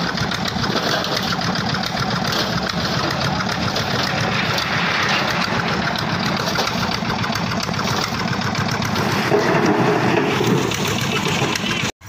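Diesel Petter-type engine running steadily at a rapid, even beat, driving a construction brick hoist.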